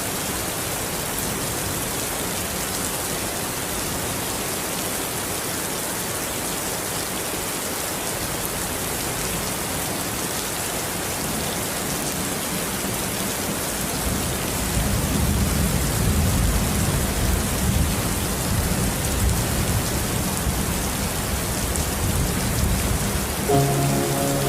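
Steady rain falling, an even hiss throughout. About halfway through, a low thunder rumble rolls in under it and lasts most of the rest.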